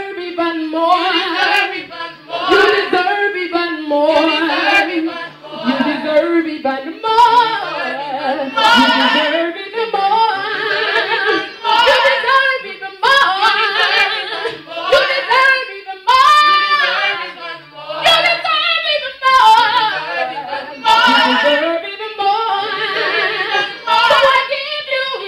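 A small gospel vocal group singing a cappella, women's voices in harmony with lower voices beneath, the phrases swelling and breaking throughout.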